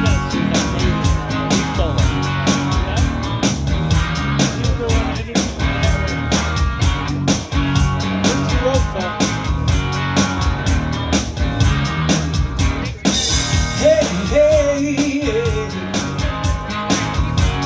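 Live rock band playing an instrumental passage: electric guitar over a steady drum beat. A cymbal crash comes about 13 seconds in, followed by a few sliding high notes.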